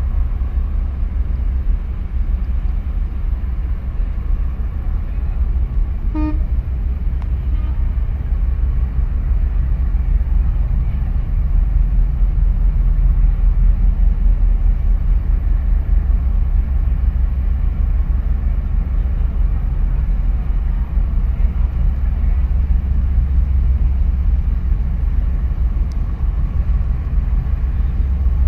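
Steady low rumble, with one short toot about six seconds in.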